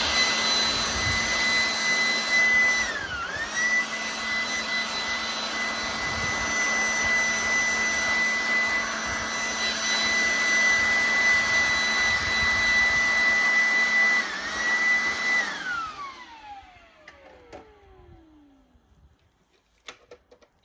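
High-speed cordless electric motor running with a steady high whine. It dips briefly in speed twice, about 3 seconds in and again near 14 seconds, then is switched off and winds down with a falling pitch over about three seconds.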